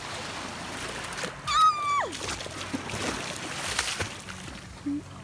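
Water splashing and sloshing, with scattered sharp clicks. About a second and a half in, a high-pitched voice gives a short cry that slides down in pitch.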